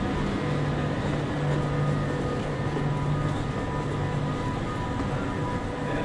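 Steady electric hum and whine of a Trenitalia electric train standing at the platform, its onboard equipment running, with several steady tones over a low drone.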